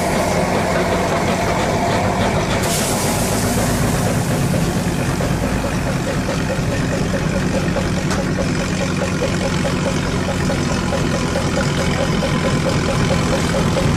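Large twin-cylinder stationary engine with hot-tube ignition being started on compressed air. A loud hiss of air comes in suddenly a few seconds in, and the engine then runs with an even, steady beat as its flywheel spins.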